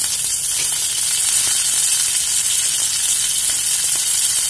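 Fresh curry leaves sizzling in hot oil with mustard seeds in a frying pan: a steady, high hiss, the tempering (tadka) stage of cooking.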